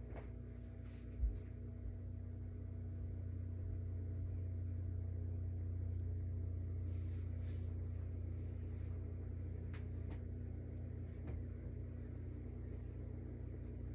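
Ceiling fan running: a steady low hum, swelling slightly in the middle, with one short thump about a second in.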